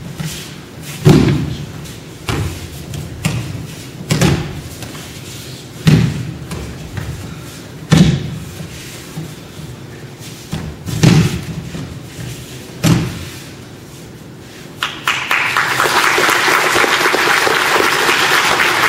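Bodies hitting tatami mats as children are thrown and take breakfalls in aikido, a series of heavy thuds about one every one to two seconds. About three-quarters of the way in the thuds stop and steady applause starts.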